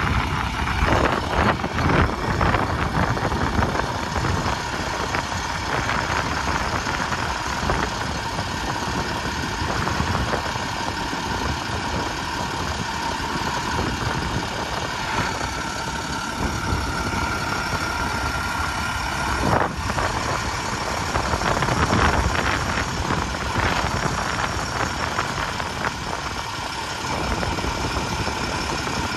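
A sign truck's engine idling steadily.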